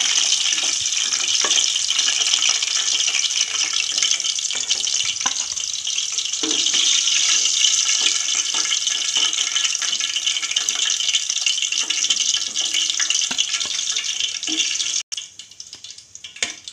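Golden-fried chicken koftas sizzling in hot oil in a pan, a steady hiss with a few light clicks of a metal slotted spoon against the pan. The sizzle cuts off suddenly near the end.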